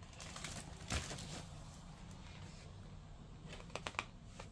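Pages of a large hardcover picture book being handled: a soft knock about a second in, then a quick run of short paper flicks near the end as a page is turned.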